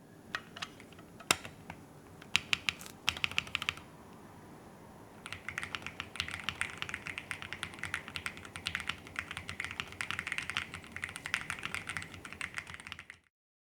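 Mechanical keyboard typing: an MKC75 with a POM plate, Aqua King and Poseidon switches and ePBT keycaps. A few scattered keystrokes, some of them loud single strokes, are followed by a short pause, then a long run of fast, continuous typing that stops near the end.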